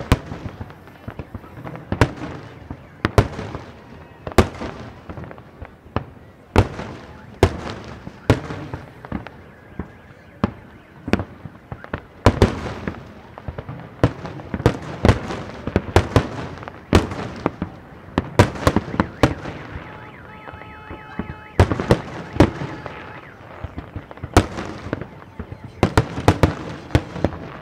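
Aerial firework shells bursting in quick, irregular succession, sharp booms with echoing tails, often one to three a second. A steady pitched tone sounds for about three seconds about two-thirds of the way through.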